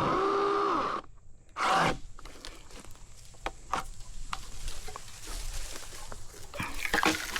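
SeeSii cordless mini chainsaw's brushless motor running, then winding down and stopping about a second in. A brief loud rustle follows, then scattered light rustling and snapping of wood and leaves.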